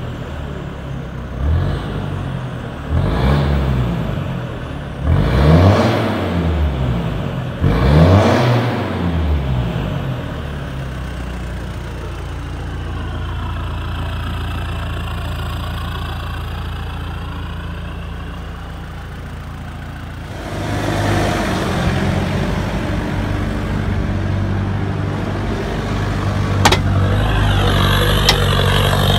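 Mitsubishi 4M40 2.8 L four-cylinder turbo diesel breathing through a 2.5-inch straight-pipe exhaust with no mufflers. It is revved about four times, each rev rising and falling, then settles to a steady idle. After about 20 s it runs louder and steadily as the vehicle is driven.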